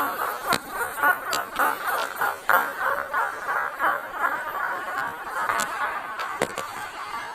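A container lid being twisted, giving a rapid stuttering squeak with a few sharp clicks along the way.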